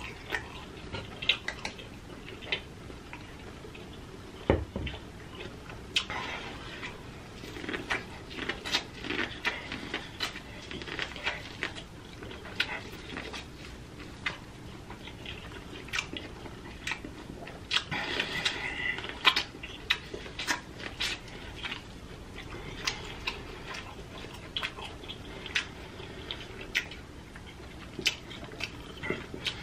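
A person eating seafood-boil food, corn on the cob among it, close to the microphone: chewing and wet lip smacks with many short sharp clicks, busiest about eighteen seconds in.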